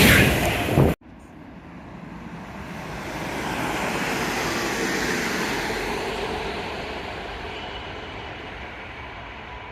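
Passing passenger train: a loud rush cuts off suddenly about a second in, then a train's rushing sound swells over a few seconds and slowly fades as it goes by.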